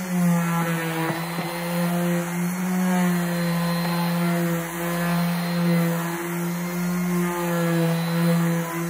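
WORX electric orbital sander running on a plywood panel with 120-grit paper, a steady motor hum whose pitch wavers slightly as the pad is pushed across the wood.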